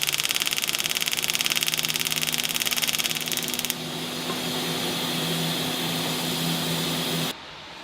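AC TIG welding arc on aluminum buzzing with a harsh, fast, even pulsing; about halfway through the sound turns to a smoother hiss over a steady low hum, which cuts off shortly before the end.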